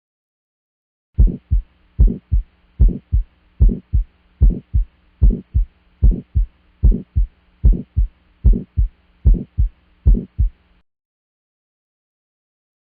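Heart sounds heard through a stethoscope, in a steady beat of about 75 a minute. Each beat is a louder first sound followed by a softer second, over a faint steady hum. The beating starts about a second in and stops abruptly near the end.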